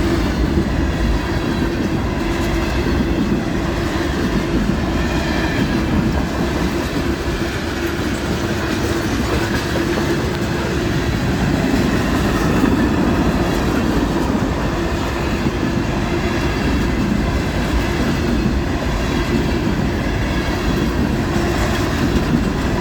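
Train rolling past at close range: a steady, loud rumble of wheels on rail with clickety-clack of the cars over the track joints.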